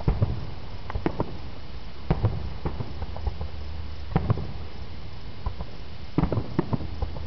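Aerial fireworks shells bursting: scattered sharp pops, coming in small quick clusters every second or two, over a low steady hum.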